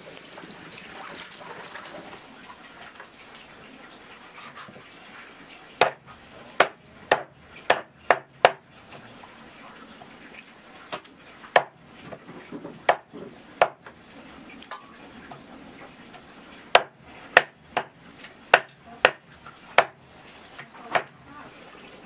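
Large kitchen knife chopping through a raw chicken on a round wooden chopping block: sharp strikes in three runs, about six from roughly six seconds in, four more a few seconds later, and about seven near the end.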